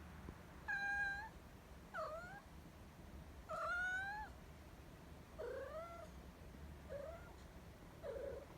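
A domestic cat meowing six times in short calls. Some rise in pitch, others dip then rise; the longest and loudest comes about four seconds in.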